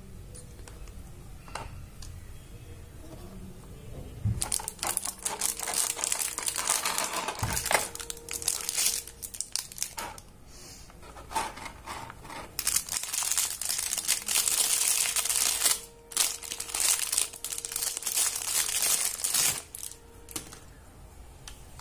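Clear plastic wrapping film crinkling and rustling as it is pulled off a hair trimmer, in two long spells with a short lull between.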